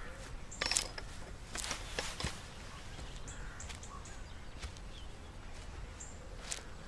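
Footsteps swishing and crunching through long grass, a few irregular steps with the loudest a little under a second in and around two seconds in, over a quiet outdoor background with a few faint bird chirps.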